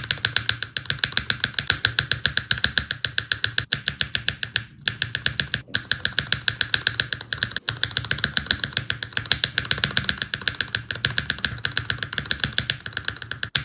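A mechanical keyboard spacebar pressed rapidly and repeatedly, several clacks a second. It is tested on a series of different linear switches in turn, with short breaks where one switch test cuts to the next.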